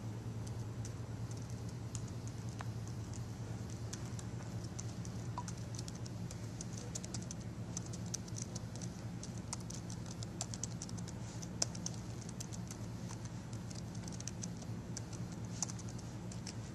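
Typing on a Dell laptop keyboard: quick, irregular key clicks, densest in the middle stretch, over a steady low room hum.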